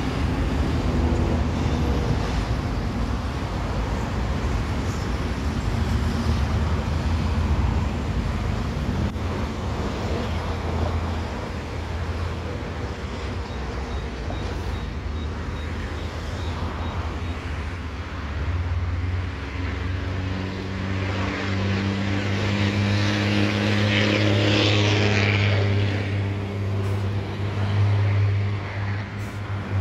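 Road traffic running steadily, with a vehicle engine growing louder in the last third, over the distant rumble of an Airbus A321 jet airliner on approach.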